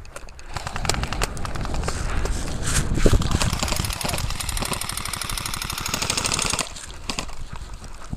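Airsoft guns firing on full auto: long strings of rapid clicking shots that stop near the end.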